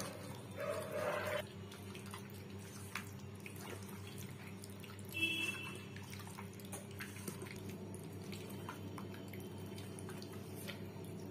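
Hands squishing and kneading raw chicken in a wet yogurt-and-spice marinade in a steel bowl, with soft wet squelches and faint clicks over a steady low hum. A brief high-pitched chirp comes about five seconds in.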